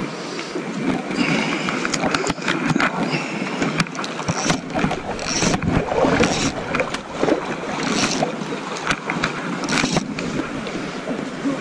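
River water sloshing and splashing close to the microphone, with wind noise and scattered short scrapes and clicks from handling the fishing rod and line.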